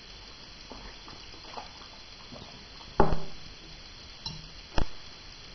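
Faint lapping as a dog licks from a ceramic mug, then the mug is set down on the table with one sharp knock about three seconds in, followed by two lighter knocks from the hand at the biscuit plate.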